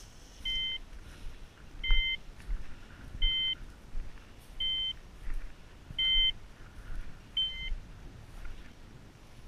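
A hunting dog's beeper collar sounding a short electronic beep at an even pace, about one every second and a half, six beeps in all.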